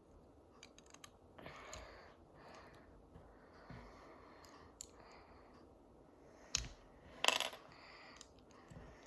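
Small plastic toy parts being handled and fitted together: scattered light clicks and rustling, with two sharper clicks about six and a half and seven seconds in.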